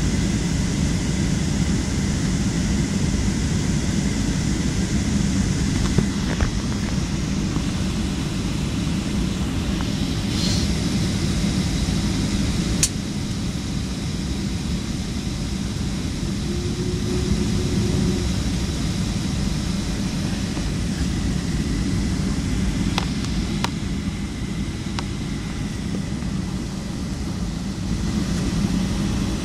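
Steady airliner cabin noise: the low rumble of the engines and air-conditioning airflow, with a few faint clicks and a brief low hum partway through.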